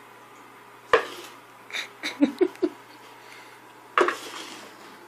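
A plastic cup knocking and clattering on a hardwood floor as a cat bats and pushes it: a sharp knock about a second in, a quick run of smaller knocks around two seconds, and another sharp knock near four seconds.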